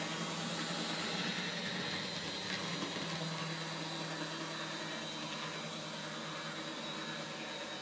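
Small electric motor and gearing of an N-gauge model locomotive running along the track, a steady mechanical hum with a thin high whine.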